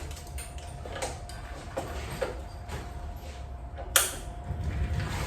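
Hands working on a bicycle wheel: scattered light clicks and knocks of parts being handled, with one sharp click about four seconds in, over a faint steady hum.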